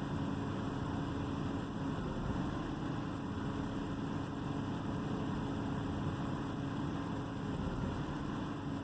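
A 2009 BMW 328i's inline-six engine running steadily at idle. The car has a misfire and idle problem.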